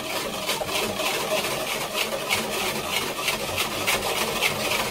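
Wire balloon whisk beating whole eggs in a stainless steel bowl, rapid rhythmic strokes of the wires scraping and clinking against the metal, about three to four a second: whipping the eggs to a foam.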